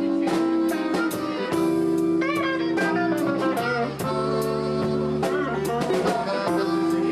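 Blues band playing an instrumental passage: guitar lines with bent notes over bass and a drum kit with cymbal hits.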